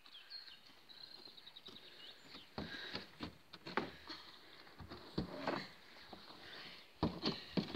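Wooden beehive frames knocking and clattering as they are handled and set down in a truck bed: a string of light, separate knocks, the loudest near the end.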